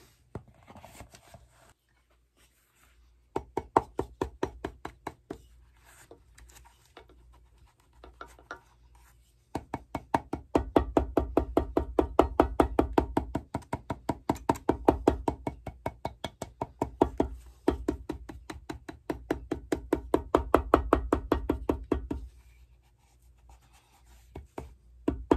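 Cobbler's hammer tapping the toe of a leather shoe held on an iron last stand: a short run of quick light strokes, then a long run of them, several a second, with brief pauses.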